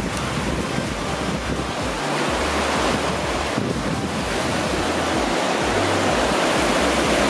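Turbulent water rushing and churning out below a canal lock's stone wall: a steady, loud rush of white water.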